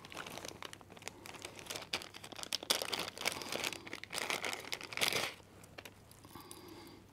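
Clear plastic bag crinkling and rustling as hands handle and open a bag of light-hanger parts, with many small crackles, loudest in the middle and dying down after about five seconds.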